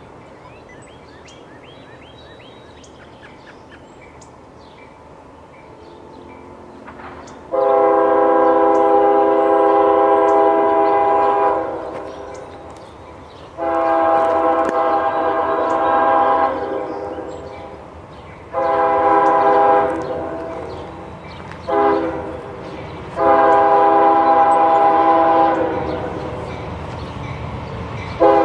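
Locomotive air horn sounding a multi-note chord in five blasts: two long, two shorter, then a final long one. This is the grade-crossing warning pattern of an approaching train. A low rumble of the train builds under the last blast.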